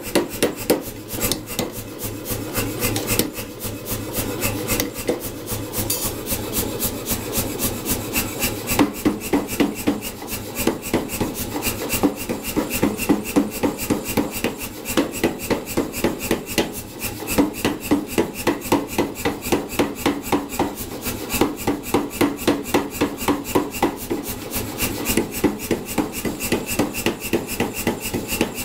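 Power hammer running steadily, its dies striking a hot steel bar in a rapid, even run of blows as a tong rein is drawn out.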